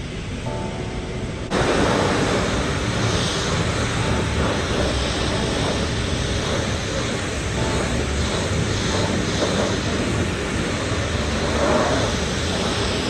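High-pressure car-wash wand spraying water onto a car, a steady hiss of spray that starts abruptly about a second and a half in.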